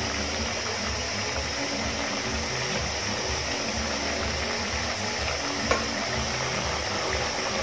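Sliced potatoes deep-frying in hot oil in an aluminium pot: a steady bubbling sizzle while a metal spoon stirs through them, with a single light tap a little before six seconds in. The potatoes are nearly done, crisping on the outside.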